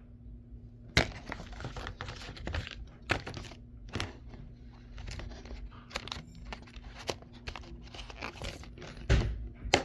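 Hands handling plastic Blu-ray cases and their packaging: irregular sharp clicks and clacks of the cases with crinkling and rustling, starting about a second in.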